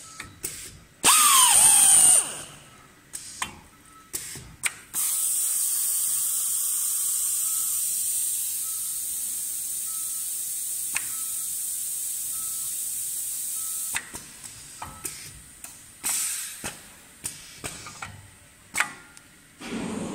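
Automatic desiccant filling machine working on an aluminium spacer frame. About a second in, a loud short motor whirr winds down in pitch. Sharp clicks and knocks come from its mechanism, then a steady high hiss lasts about nine seconds while the frame is filled, under a faint repeating beep.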